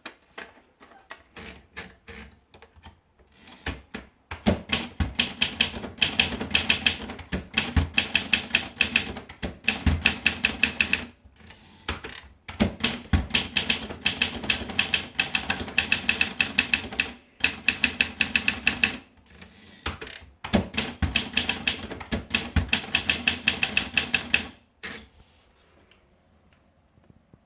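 Triumph Perfekt manual portable typewriter being typed on. A few slow, soft key strikes come first, then fast runs of sharp clacking keystrokes in several bursts with short pauses between them. The typing stops near the end.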